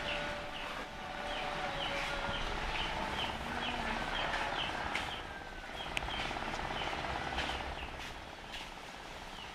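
A small bird chirping repeatedly: short, falling chirps, two or three a second, that stop about seven seconds in.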